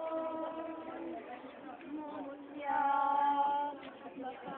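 Singing, with long held notes; the loudest note is held from about two and a half seconds in to nearly four seconds.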